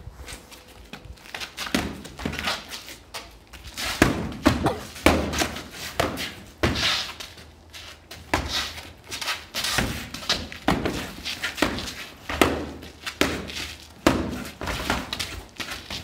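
Swords striking shields in sword-and-shield sparring: irregular thunks and slams, often in quick flurries of two or three blows.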